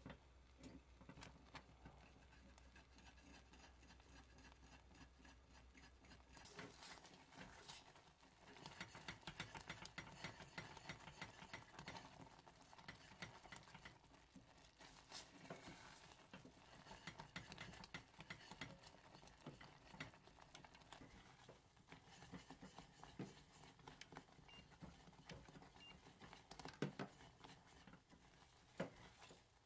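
Faint scraping and quick irregular clicking of a silicone spatula stirring a thick, bubbling caramel mixture in a stainless steel saucepan, busier from about six seconds in, with a couple of sharper knocks near the end.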